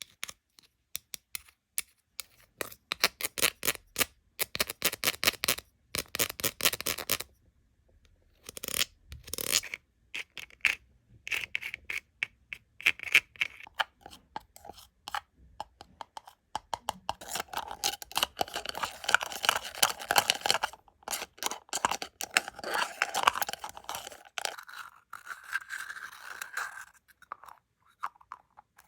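Rapid tapping and clicking on plastic toys in quick runs, then a longer stretch of scratching and rustling near the end.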